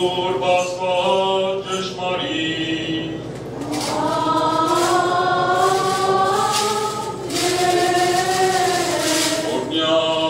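A choir chanting an Armenian church hymn (sharakan): a slow melody that moves through short notes at first, then settles into long held notes.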